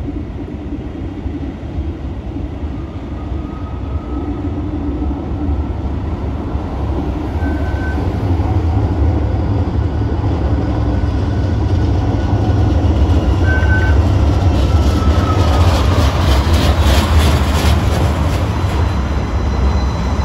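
DC Streetcar tram approaching and passing close by: a low rumble of motors and wheels that grows louder as it nears, with a faint whine and two brief high beeps, about seven and thirteen seconds in. Clicking from the wheels builds in the last few seconds as the car goes by.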